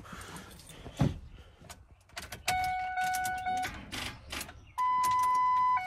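Vehicle's electronic warning tone sounding in two steady blocks of about a second each, the second one higher-pitched, with several light clicks as the key is tried. The engine does not crank, which the owner hopes is down to a corroded battery, or to a speaker box draining it.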